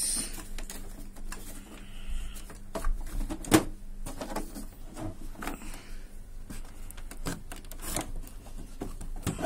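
Plastic clicks and knocks from the housing of an HP Smart Tank 515 inkjet printer as it is lifted open and handled, with a sharp click about three and a half seconds in and a run of knocks near the end.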